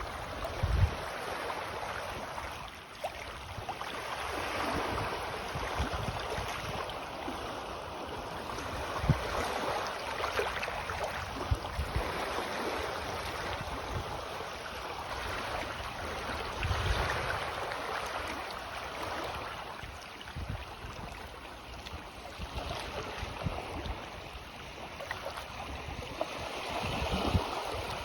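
Small sea waves of an incoming tide lapping and washing on the shore, swelling and easing every few seconds, with a few brief low thumps of wind on the microphone.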